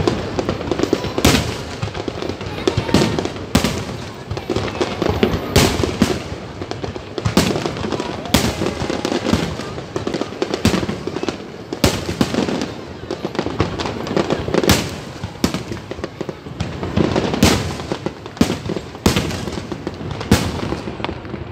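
Fireworks display: aerial shells bursting in a loud, irregular string of booms, about one a second.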